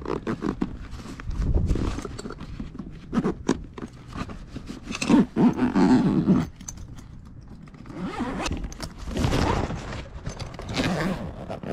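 Nylon tool-backpack zipper dragged along a stuffed pocket in several short, uneven pulls, with clicks from the teeth and pull. The zipper is straining against the overfull bag.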